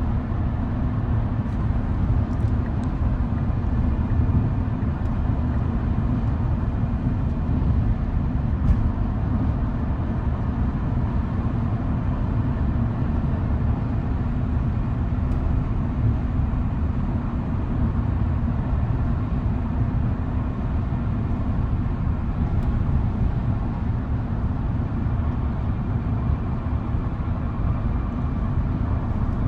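Steady road and wind noise inside the cab of a Tesla Cybertruck cruising at highway speed while towing a loaded trailer: a low, even rumble from tyres and air, with no engine note from the electric drive.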